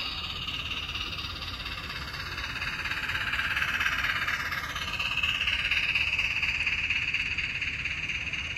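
HO scale model train, a steam locomotive and a string of freight cars, rolling past on the track: a steady rolling noise of small wheels on the rails, louder from about halfway through.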